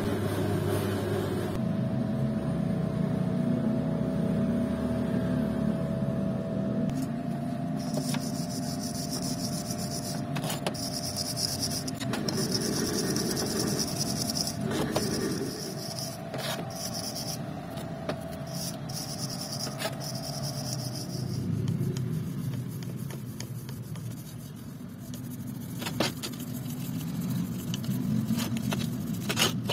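Hand brushes scrubbing the oily steel flywheel halves of a small motorcycle crankshaft, first a wire brush and then a stiff plastic brush, a continuous scraping and rubbing over a steady background hum.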